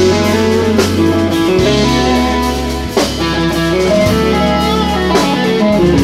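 Instrumental jazz-fusion band playing live: electric guitar out front over keyboards, electric bass and drum kit, with a sharp drum or cymbal accent about every two seconds.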